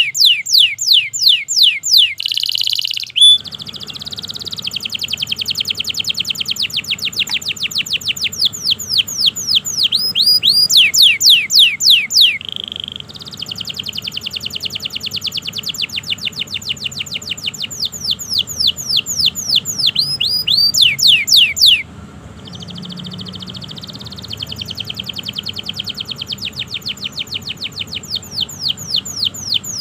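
Domestic canary singing a long, unbroken song: fast rolling trills of repeated high sweeping notes, loud, changing phrase every few seconds with short buzzy rattles in between.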